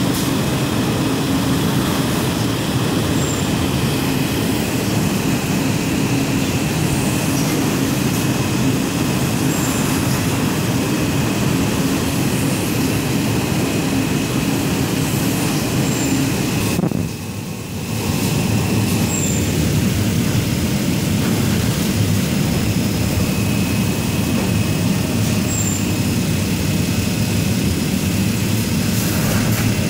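Toilet-paper packing machinery running: a loud, steady mechanical drone with faint short high chirps every few seconds. The noise drops briefly about 17 seconds in, then returns.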